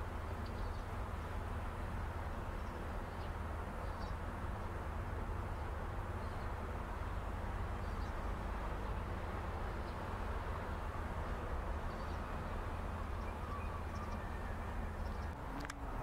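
Outdoor ambience: a steady low rumble with faint, short bird chirps every second or two, and a brief click near the end.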